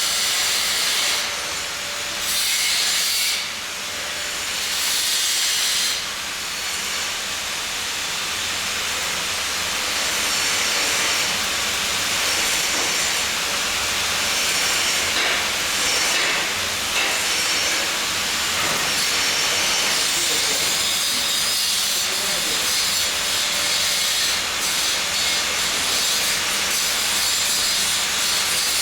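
Welding arc hissing and crackling steadily and loudly, with a couple of short dips in level a few seconds in.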